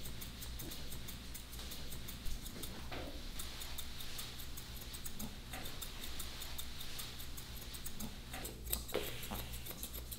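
Grooming scissors and thinning shears snipping through a dog's fur: a quick, irregular run of short, crisp snips.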